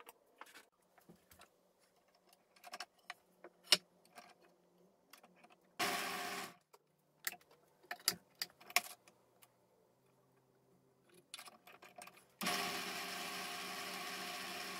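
Light clicks and knocks from handling small wooden parts and plastic spring clamps, with a brief whirring burst about six seconds in. Near the end a benchtop drill press starts and runs steadily, spinning a dowel-mounted wooden toy wheel that is held against a sanding stick.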